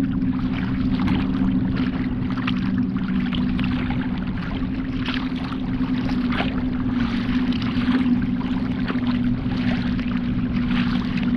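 Choppy lake water splashing and slapping against a kayak's hull as it moves through small wind-driven waves, in irregular splashes, over a steady low hum.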